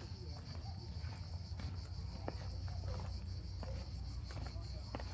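A steady, shrill chorus of cicadas. A low rumble and a few soft footfall-like clicks, about a second apart, sit underneath.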